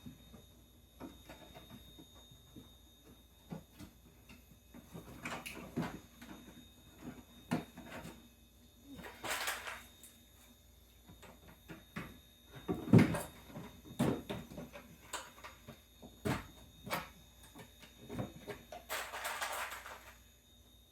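Sections and braces of a modular crawler obstacle course being handled and clipped together: scattered clicks and knocks, with two longer scraping sounds and the loudest knock about two-thirds of the way in.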